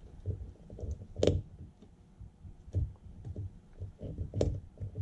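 Light clicks and small knocks of hands working a tiny screw inside an opened wristwatch case, with two sharper metallic clicks, one about a second in and one near the end.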